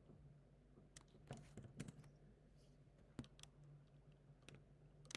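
Faint keystrokes on a computer keyboard: a few scattered clicks with a quick run of them about a second and a half in, over a faint low hum.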